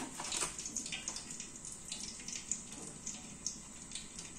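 Hot cooking oil sizzling in a pot on a gas stove, with many irregular sharp crackles over a steady hiss.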